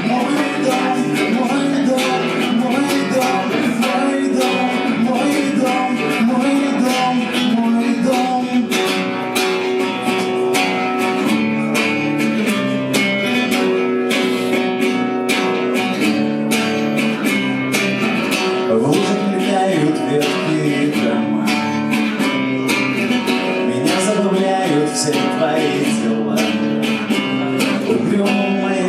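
Acoustic guitar strummed in steady chords, a song played live.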